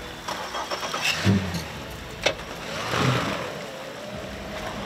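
Motor engine running and revving up twice, with rattling clicks and one sharp knock about two seconds in.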